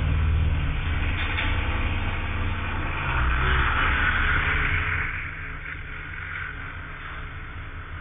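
Low rumble of a motor vehicle's engine and road noise, loud for about five seconds and then easing off to a quieter steady rumble.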